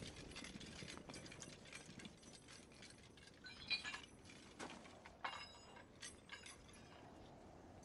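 Near silence, with a handful of faint metallic clinks and rattles of hand weapons and gear scattered through the middle, a couple of them ringing briefly.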